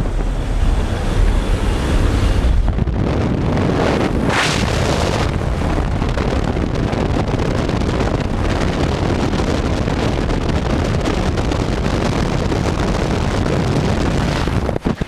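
Strong wind rushing past the open door of a jump plane in flight, buffeting the helmet-camera microphone, over the plane's engine noise. There is a brief hissing surge about four seconds in.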